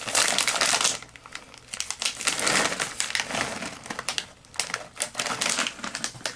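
Plastic snack bag of peanut butter chips crinkling in irregular bursts as it is handled and turned over.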